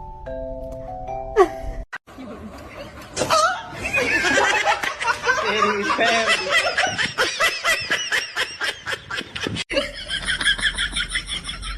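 A short playful mallet-percussion jingle with a swooping boing, then, after a cut, high-pitched laughter in rapid pulses that carries on for several seconds.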